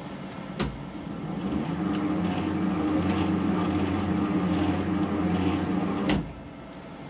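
Warco WM250V bench lathe switched on with a click, then running slowly (about 140 RPM) in forward under power feed with the half nut engaged, its change-gear train noisy, as the threading tool takes a light scratch pass. The hum stays steady, then another click about six seconds in and the running sound drops away as the machine is stopped.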